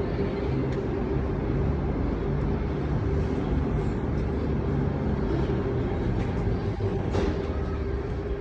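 Light-rail train running: a steady low rumble with a steady hum, and a brief sharp rattle about seven seconds in.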